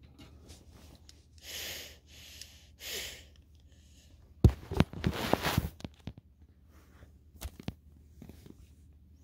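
Slime being squeezed and worked by hand close to the microphone: soft squishing rushes about one and a half and three seconds in, then a burst of crackling, popping clicks for about a second and a half in the middle, and a few more pops a little later.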